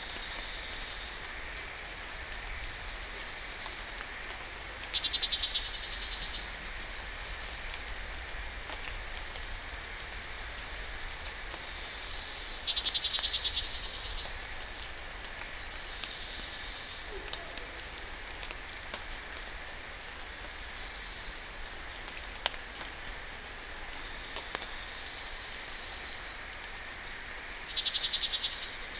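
Outdoor ambience of insects chirping, with quick high ticks throughout. A fast pulsed trill comes and goes three times over a low steady rumble, and there is one sharp click about three-quarters of the way through.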